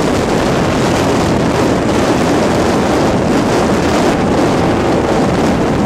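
Mirage 250 motorcycle cruising at a steady speed in a group of motorcycles, its engine drone buried under heavy, constant wind noise on the microphone.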